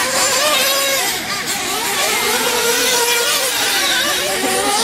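Several 1/8-scale nitro RC truggy engines running at race speed, their high-pitched whine rising and falling as the trucks accelerate and brake around the track.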